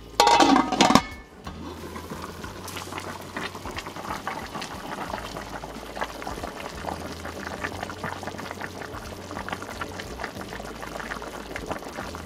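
Pot of chicken soup boiling on the stove: a steady bubbling with many small pops. Near the start comes a brief, loud clatter, the lid going onto the pot.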